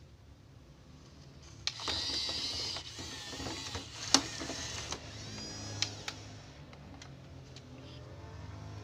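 Small electric motors and plastic gearboxes of a toy RC bulldozer whirring, louder for a few seconds from about two seconds in, with a few sharp plastic clicks, then running more softly.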